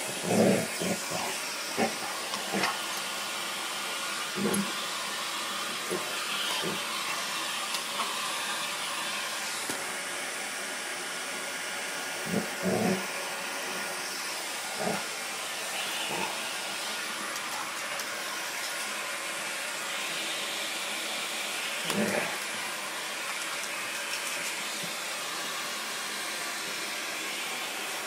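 Dyson Ball vacuum cleaner running steadily with its hose in use. A few short, louder sounds from the dog break in, the loudest about three-quarters of the way through.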